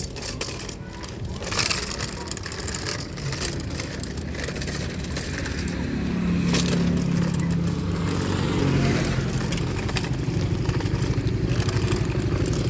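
A vehicle engine running, its pitch rising about six seconds in and then settling into a fast, even pulsing, with crackling noise over it.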